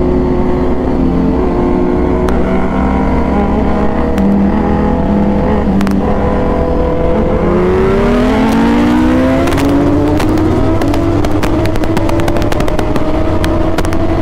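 Motorcycle engine running at speed, heard from the moving bike over low wind rumble; its pitch holds steady, dips about seven seconds in, then climbs steadily as the bike accelerates. Scattered light clicks come in near the end.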